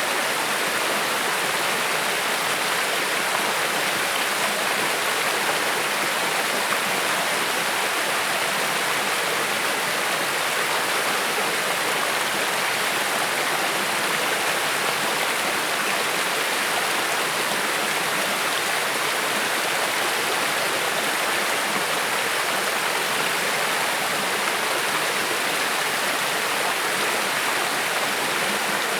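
Creek water flowing and burbling over rocks, a steady rushing sound.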